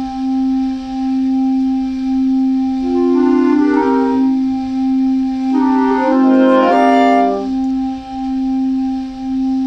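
Slow clarinet music: a steady held low note throughout, with two quick flurries of notes over it, about three and six seconds in.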